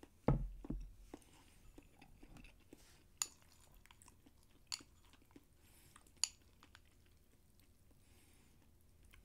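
Close-up eating sounds: quiet chewing, a dull knock about a third of a second in, then three sharp clicks of chopsticks against a bowl, about a second and a half apart.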